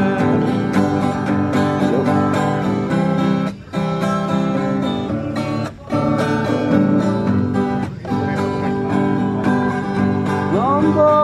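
Instrumental break of a song: an acoustic guitar strumming chords, with three short pauses about three and a half, six and eight seconds in.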